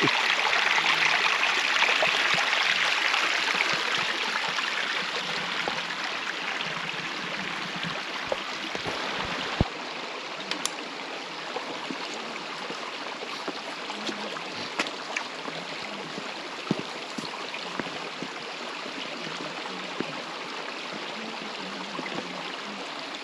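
Running water of a woodland stream, a steady rushing that is loudest at first and eases off over several seconds before holding steady, with a few faint scattered clicks.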